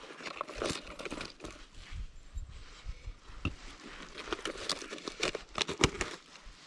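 Dry leaves and twigs crackling and crunching in an irregular run of small snaps, with one louder snap near the end.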